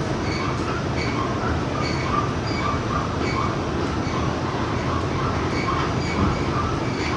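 R46 subway train running between stations with a steady rumble and rattle. A faint high squeal or whine comes and goes about once or twice a second.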